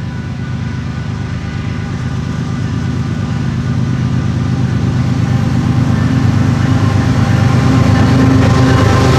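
Union Pacific freight train's diesel-electric locomotives approaching. The deep engine rumble grows steadily louder as the lead units come closer.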